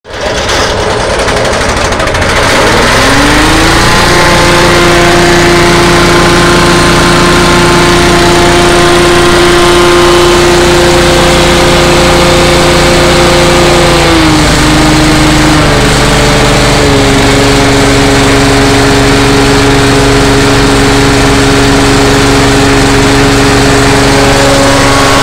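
Gasoline engine running a Penagos PP-600R grass chopper, its rotor spinning with no grass fed in. The speed rises two to four seconds in and holds steady. It dips briefly about fourteen seconds in, settles at a new steady speed, and climbs again near the end.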